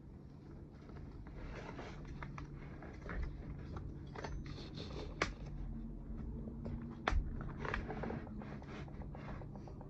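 Hand work on a Stihl MS200T chainsaw's intake parts: light scraping and rubbing with scattered small clicks of tools and plastic parts, the sharpest clicks about five and seven seconds in.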